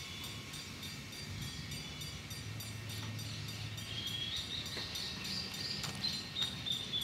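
A stopped freight train, standing still with no wheel noise: a faint steady low hum with a high hiss, a few thin high chirps in the second half and a couple of faint clicks.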